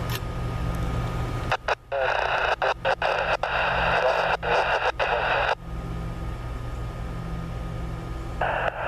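Railroad scanner radio: a transmission of static breaks in for about four seconds and cuts out in short dropouts, and near the end an automated voice starts, typical of a trackside defect detector's radio report. A low rumble underlies the first second and a half.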